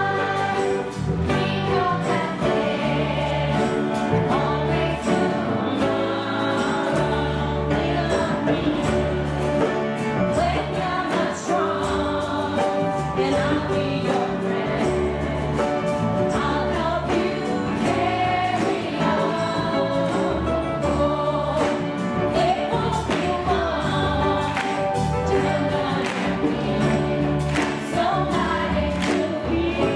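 A children's choir singing a song, accompanied by a group of acoustic guitars strumming, with a steady beat in the bass.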